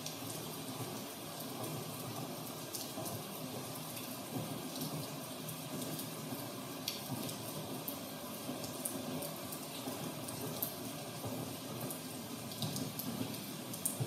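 Steady rain with scattered sharp drops ticking, over a low even rumble.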